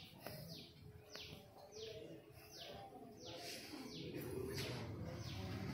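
A bird calling over and over, each call a quick falling chirp, about one every two-thirds of a second.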